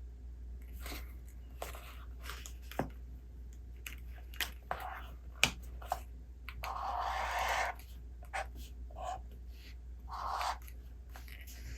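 A paper book being handled and its pages turned: a string of light taps and clicks, a page sweeping over for about a second midway, and a shorter brush of paper near the end, over a steady low hum.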